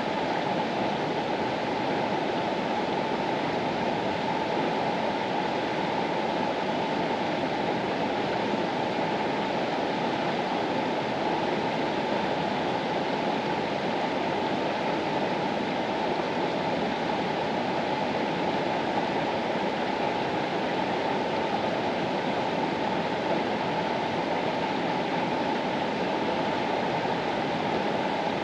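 Water of the Mastallone river flowing, a steady, unbroken rush with no single splash standing out.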